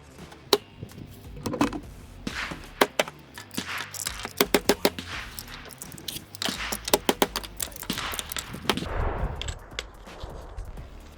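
Handling of dirty polymer Glock magazines: a series of sharp clicks and knocks, some in quick runs of four or five, as the magazines are tapped and worked with sand and dirt still in them.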